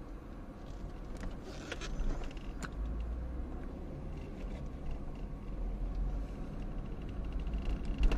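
Car driving along a street, heard from inside the cabin: a steady low engine and road rumble. A few brief clicks come in the second and third seconds.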